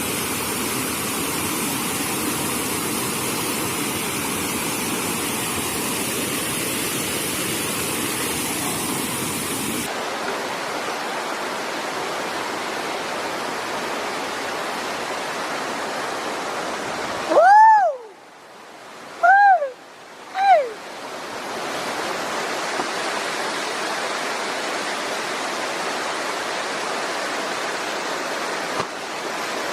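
Waterfall rushing steadily. Past the middle the rush breaks off for a few seconds, and three short pitched sounds, each rising then falling, are heard before it returns.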